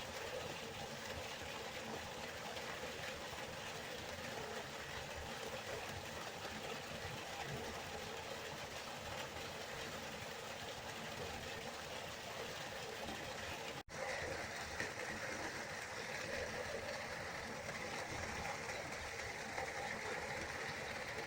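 River water flowing, a steady rushing hiss. About two-thirds of the way through it cuts out for an instant and resumes a little brighter.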